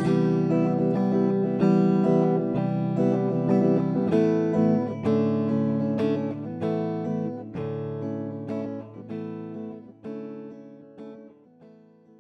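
Acoustic guitar playing the last bars of a song after the singing has stopped. Single plucked notes and strums come every second or so and fade gradually away to nothing by the end.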